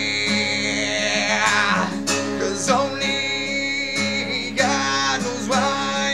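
Acoustic guitar strummed as accompaniment to a man's own song, with a held sung note wavering and trailing off in the first second and a half before the guitar carries on alone with a few strong strums.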